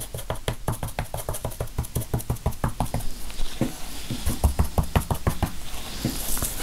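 Rapid, irregular light taps and knocks, several a second, as gold leaf is dabbed down onto the tray.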